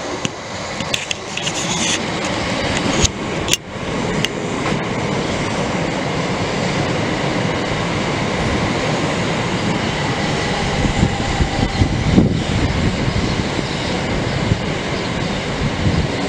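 Southeastern electric multiple unit passing close by, a steady rush of wheels on rails, with a few sharp clicks in the first four seconds.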